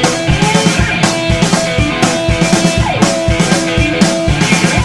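Music with a steady drum-kit beat, the bass drum and snare hitting several times a second under sustained instrument notes.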